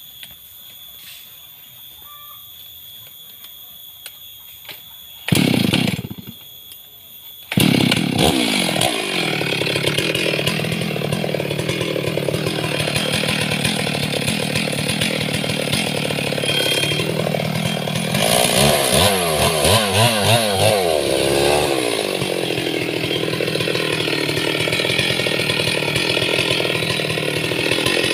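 Two-stroke chainsaw with a long bar being started. It fires briefly about five seconds in, catches and keeps running about two seconds later, then runs on with the throttle blipped rapidly several times a little past the middle.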